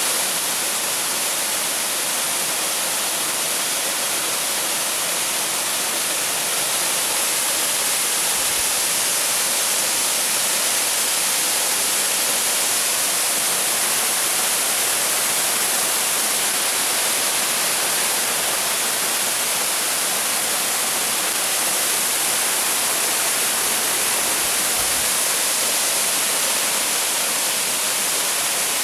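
A waterfall: a steady rush of falling water.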